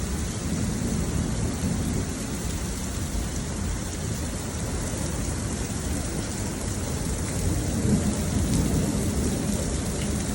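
Heavy rain pouring steadily, with a low thunder rumble that swells and peaks about eight seconds in.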